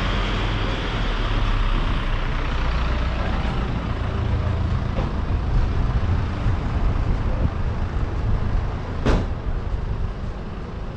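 Street traffic: a motor vehicle engine rumbling steadily nearby, with a single sharp click near the end.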